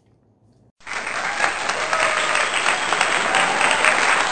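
Crowd applause, many hands clapping, cutting in suddenly about a second in after a brief hush and going on steadily: a pasted-in applause sound effect rewarding the dog for giving its paw.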